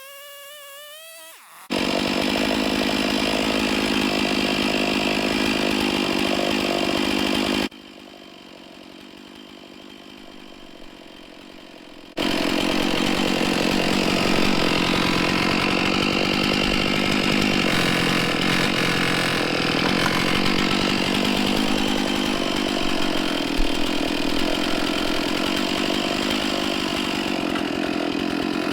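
Stihl 461 two-stroke chainsaw on an Alaskan chainsaw mill running at full throttle, ripping lengthwise through a big white pine log. The saw noise starts abruptly a couple of seconds in, drops suddenly to a much lower level for about four seconds, then comes back just as abruptly and runs on steadily.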